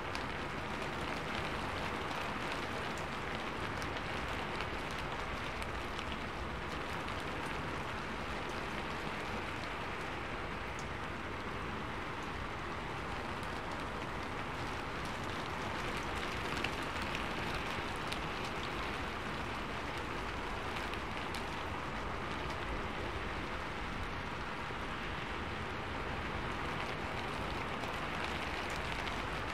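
Steady rain falling, an even hiss with individual drops ticking through it.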